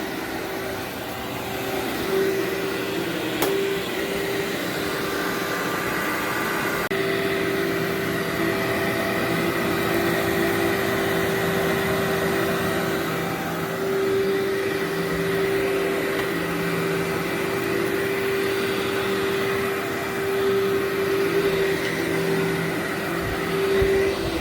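Workhorse vacuum cleaner running steadily over berber carpet: a constant motor whine over rushing air, swelling slightly in level as it is worked back and forth.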